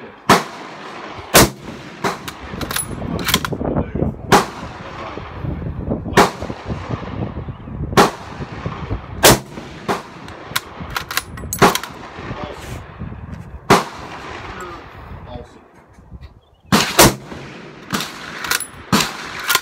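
Rifle fire on a shooting range: well over a dozen sharp reports at uneven intervals, some in quick clusters, each with a short ringing tail, from several shooters firing at once. Among them are shots from a bolt-action M1903A3 Springfield in .30-06.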